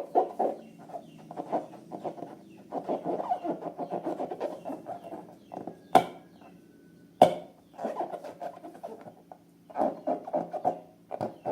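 Slime squelching as it is squeezed and kneaded by hand in quick strokes, several squelches a second. Two sharp, loud snaps come about six and seven seconds in.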